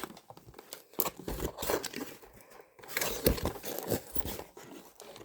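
Cardboard toy box and its packaging being handled and pulled at: irregular crinkling and tearing with small sharp knocks.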